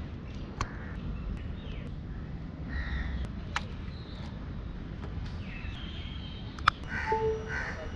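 Birds calling over steady outdoor background noise, with a few sharp clicks as a cable is plugged into a motorcycle's USB port and its ignition key and handlebar switch are worked.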